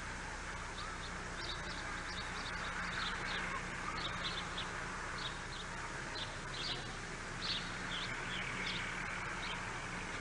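Quiet background with small birds chirping: short, high chirps scattered irregularly, and no banging or other loud sound.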